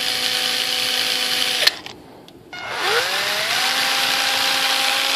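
Cordless drill running at a steady pitch, stopping with a click a bit under two seconds in, then started again about a second later, its pitch rising as it spins up before it runs on steadily.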